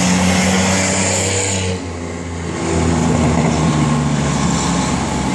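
Engines of V6 banger race cars running at speed around an oval track. The sound eases for about a second around two seconds in, then builds again.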